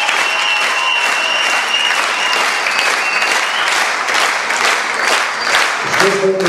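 Large audience applauding steadily, a dense wash of clapping, with a thin high note held over the first half. Just before the end, a group of voices starts singing.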